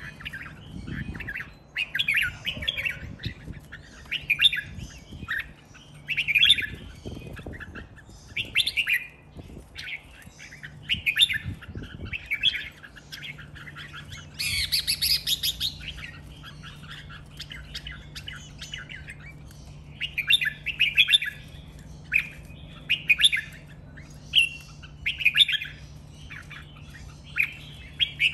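Caged red-whiskered bulbul singing: short, bright, chirping phrases repeated every second or two, with a denser, fuller burst about halfway through.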